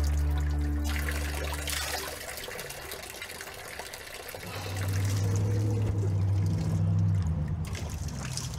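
Running water, trickling and pouring, over background music with long low held notes that fade out about two seconds in and return about four and a half seconds in.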